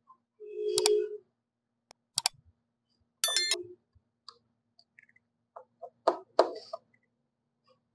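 A few light, separate clicks and two short ringing tones: one about a second in and one just after three seconds.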